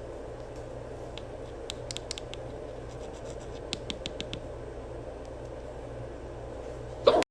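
A person hiccuping: one sharp, loud hiccup near the end, over a steady background hum with scattered faint clicks.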